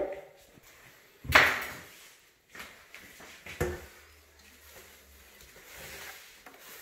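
Plastic blender jar being handled and loaded with chunks of beetroot, ginger and stinging nettles: a few separate knocks and thuds. The loudest is a rattling knock about a second in, and a duller thump comes near the middle. The blender motor is not running.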